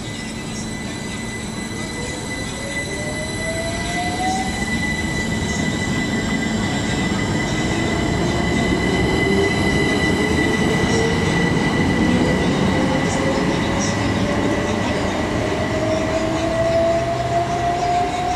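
Class 387 electric multiple unit pulling out and accelerating, its traction motors whining in a tone that climbs steadily in pitch. Under the whine is the running noise of the wheels on the rails, and a steady high tone sounds throughout.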